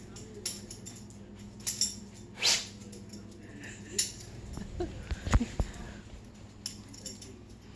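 A pet sneezing in short, sharp bursts, the loudest about two and a half seconds in and another about four seconds in, with a few light taps and knocks in between.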